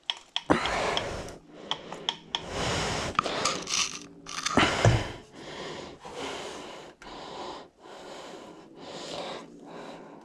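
Heavy, effortful breathing and straining from someone squeezing boiled potato through a hand potato ricer. The breaths come about once a second in the second half, with a few sharp clicks and knocks from the ricer.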